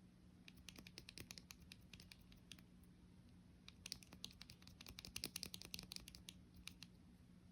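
Typing on a custom 60% keyboard with Geon Raptor HE magnetic switches with L60 stems, a Wooting 60HE PCB, a polycarbonate plate and PBT keycaps in a Tofu60 Redux case. Irregular keystrokes, with a faster run of presses about four to six seconds in.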